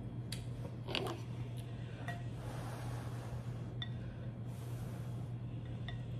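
Chopsticks clinking now and then against a glass bowl of ramen, with heavy snoring in the background: two long breathy snores, one about two seconds in and one about four and a half seconds in.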